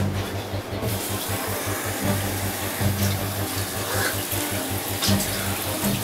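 Water from a bathroom tap running into the sink, starting about a second in, with splashing as the face is washed. Background music with a low steady beat plays underneath.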